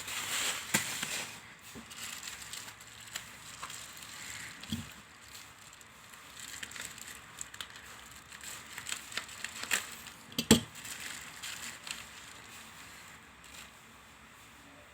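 Parcel packaging being handled and unwrapped: crinkling and rustling with scattered clicks and taps, a dull thump about five seconds in, and a sharp knock, the loudest sound, about ten and a half seconds in.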